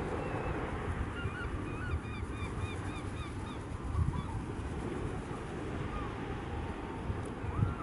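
Herring gulls calling overhead: a fast run of repeated yelping calls, about four a second, starting about a second in, then a few scattered single calls. A steady low rumble runs underneath.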